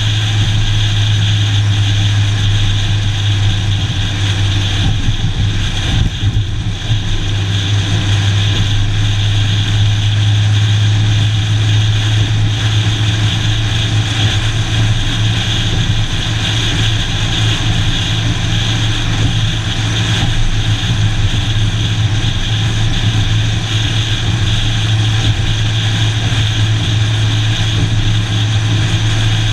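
Steady drone of a vehicle driving at highway speed: engine and tyre noise with a strong, constant low hum, and some wind rumble on the microphone about five to seven seconds in.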